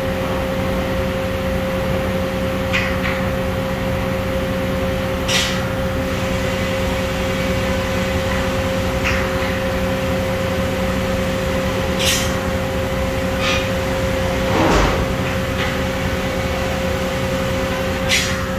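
Steady workshop machine hum with several fixed tones. Over it come a handful of brief scrapes and light knocks, the loudest a little before the end, as a steel straightedge is set against a large circular sawmill blade to check its flatness and tension.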